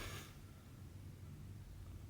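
Quiet room tone with a low steady hum; the tail of a rasping rub, embroidery thread drawn through cross-stitch fabric, fades out right at the start.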